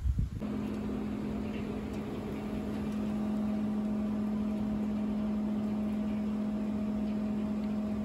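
Sawmill machinery running steadily: a constant hum that holds one pitch, starting about half a second in.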